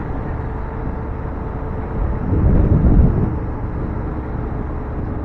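BMW F750GS parallel-twin motorcycle running steadily on the road, engine hum mixed with wind and road noise, with a louder low rush about two seconds in.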